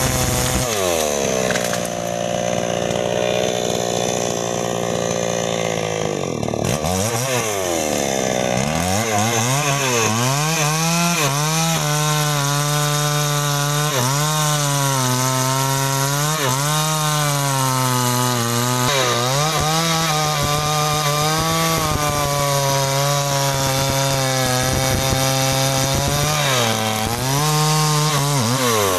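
New West 628 two-stroke chainsaw at full throttle, dropping back about a second in, then revving up again and running hard through sengon wood, its pitch sagging and recovering as the chain works through the cut.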